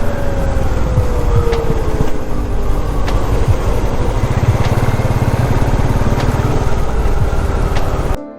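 Royal Enfield Classic 350's single-cylinder engine running on the move, under heavy wind noise, its note easing down over the first couple of seconds. The sound cuts off abruptly just before the end.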